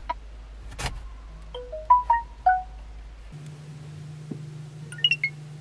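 A quick run of short, bright chime-like notes at changing pitches, like a little mallet tune, with a few higher notes near the end.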